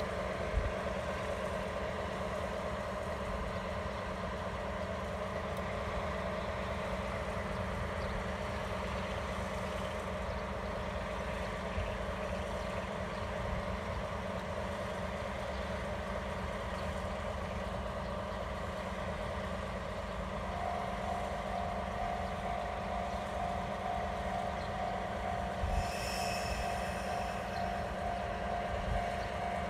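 Diesel locomotive engine running steadily as the locomotive moves slowly along the track. A steady whine joins in about two-thirds of the way through, and a brief high squeal sounds near the end.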